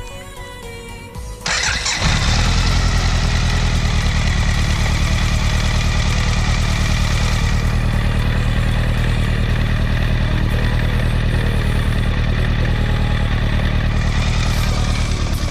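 BMW K1200RS motorcycle's inline-four engine started about one and a half seconds in, catching almost at once and then idling steadily.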